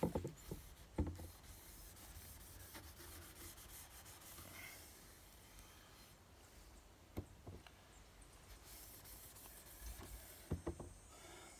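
Steel wool rubbing along a steel muzzleloader rifle barrel, scrubbing off light surface rust before browning; faint, with a few light knocks.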